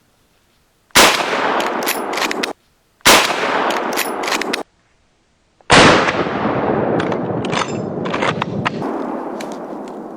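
Three rifle shots close by, each followed by a rolling echo. The first two echoes cut off abruptly, while the third, about two and a half seconds after the second, fades out slowly.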